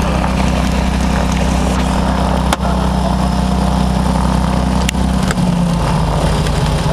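Piper Turbo Arrow's turbocharged six-cylinder engine and propeller running at low power while taxiing, a steady drone heard from inside the cabin. The engine note shifts slightly lower about five seconds in.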